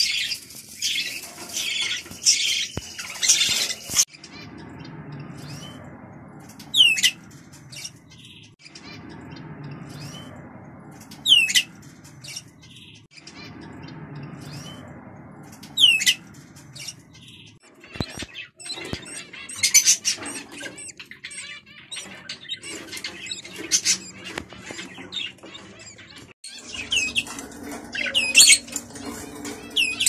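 Budgerigars chattering and chirping, with single sharp call notes about every four to five seconds in the middle stretch and busier chatter at the start and near the end.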